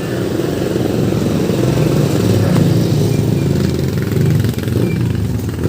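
Steady, loud engine-like drone, swelling a little in the middle.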